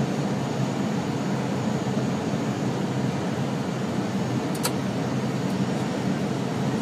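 Steady cockpit noise of an airliner on approach, airflow and engine sound with no break, and one short click about four and a half seconds in.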